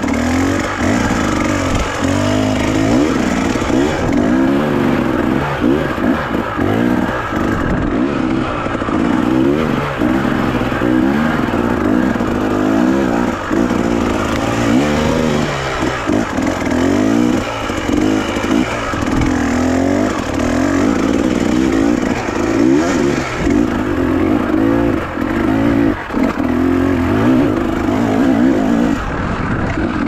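Enduro dirt bike engine revving up and down over and over as the bike is ridden up a rough, narrow dirt trail, the throttle opening and closing every second or two.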